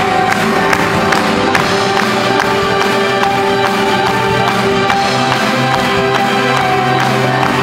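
Live band music with piano and drum kit: a steady beat under sustained held notes.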